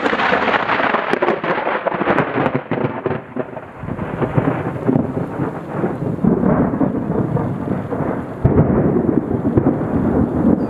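Thunder from a close lightning strike: it breaks out suddenly and crackles sharply for the first few seconds, then settles into a rolling rumble. The rumble swells again about eight and a half seconds in.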